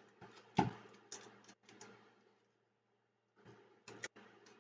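A few light clicks and taps of tools and a circuit board being handled on a workbench, with one louder knock about half a second in, over a faint low hum.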